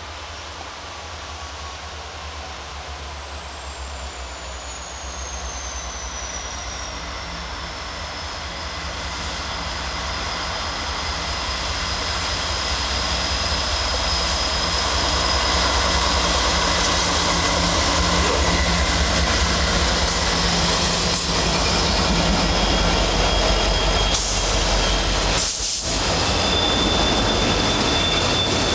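Canadian National diesel-hauled freight train approaching and passing: the locomotives' rumble grows steadily louder over the first half, then the double-stack intermodal cars roll by. A thin high wheel squeal slides down in pitch over the first several seconds and then holds steady.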